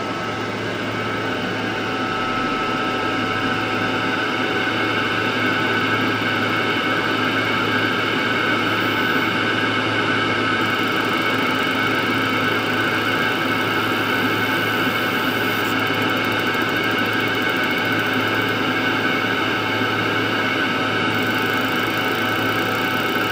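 Steady machine running sound of a mini fiber laser back-glass removal machine and its fume-extraction fan: an even fan-like whirr with a steady high whine and a low hum, growing slightly louder over the first few seconds.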